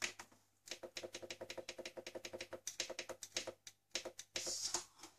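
Control panel of a Krups Prep&Cook kitchen machine giving a rapid run of short clicking beeps, about ten a second, as the temperature setting is stepped up to 35 degrees; a few slower single clicks and a short hiss follow near the end.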